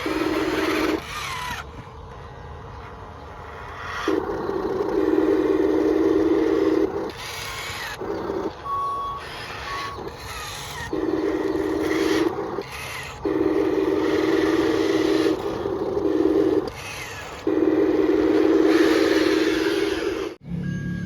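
Electric motors and gearboxes of radio-controlled model construction machines whirring in runs of one to three seconds, stopping and starting again and again as the controls are worked.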